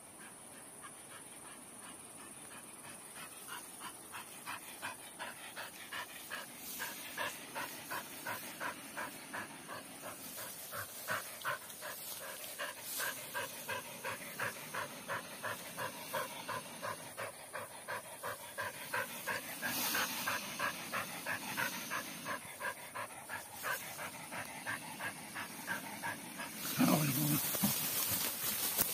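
A dog panting rapidly, about four breaths a second, growing louder over the first few seconds. A brief louder low sound comes near the end.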